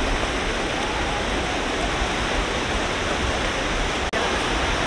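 Sea surf washing onto a beach, a steady loud rush of water noise that cuts out for an instant about four seconds in.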